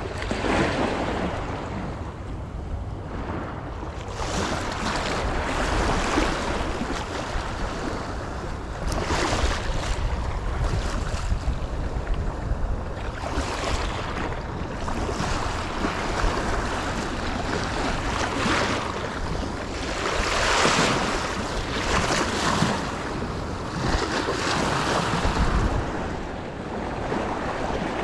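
Small waves washing and splashing over shoreline rocks, surging every few seconds, with wind rumbling on the microphone.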